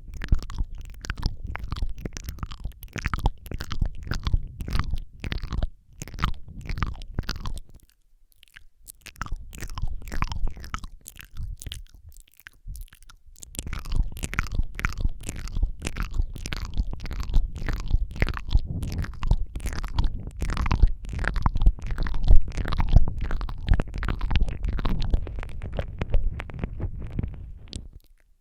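Wet ASMR mouth sounds very close to the microphone: rapid lip smacks, tongue clicks and licking noises in a dense stream, with two short pauses, one about eight seconds in and one around twelve to thirteen seconds.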